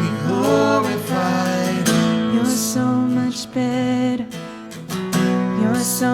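A live worship band plays an instrumental passage between sung sections, with acoustic guitar strumming over steady chords.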